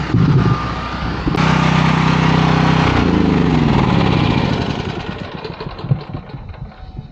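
Portable generator engine running, then shut off about three seconds in: its pitch falls and it fades as the engine winds down to a stop.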